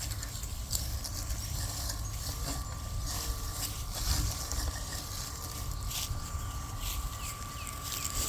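EcoFlow GPS robotic lawn mower running on its own, with a steady high thin whine from its electric drive. Light clicks and rustles come and go over a low rumble.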